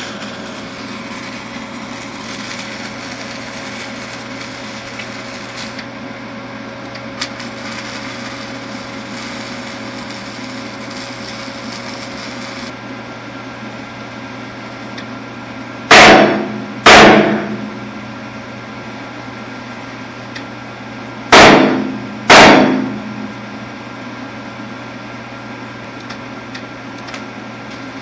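Four heavy hammer blows on metal in two pairs, the blows in each pair about a second apart, each ringing briefly. Under them runs a steady mechanical hum.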